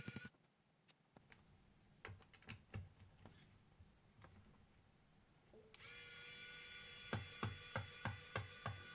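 Faint scattered clicks and knocks of handling, then about six seconds in a steady electronic buzzing tone starts, joined a second later by regular tapping about three times a second.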